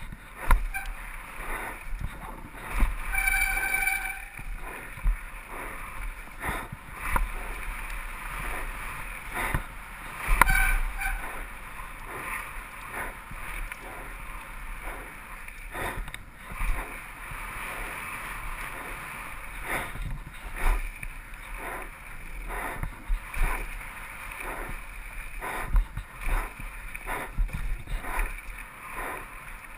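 Mountain bike ridden fast down a bumpy dirt trail, heard from a helmet camera: steady tyre and wind rush with constant clatter and knocks from the bike over roots and bumps, and a brief squeal about three seconds in.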